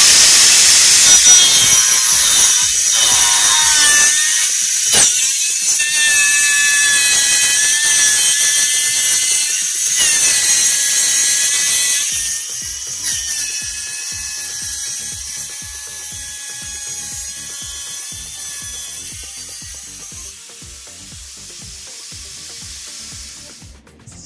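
Angle grinder in a sliding jig running with a cutting disc in a white board: a high whine with grinding hiss that starts abruptly, with a brief knock about five seconds in, and fades gradually over the second half.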